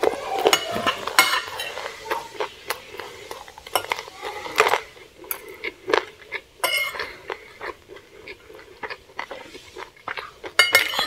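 Metal fork and spoon scraping and clinking against a plate as rice and food are scooped up: a run of irregular short clicks and scrapes, some ringing briefly.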